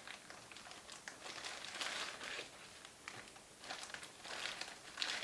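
Plastic bag crinkling and rustling in irregular bursts as a scope mount is pulled out of it.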